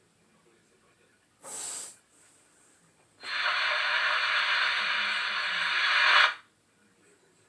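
Hard, hissing breath sounds: a short sharp breath about one and a half seconds in, then a loud, steady hiss of about three seconds that cuts off suddenly.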